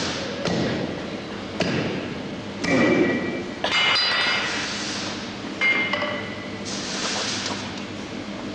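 Hand hammer striking on a blacksmith's anvil, several separate blows roughly a second apart, some leaving a high metallic ring.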